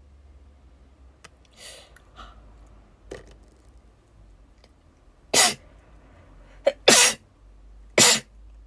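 A young woman sneezing three times in quick succession, about a second apart, in the second half. She blames the powder of her eyeshadow, which she says is probably setting her off.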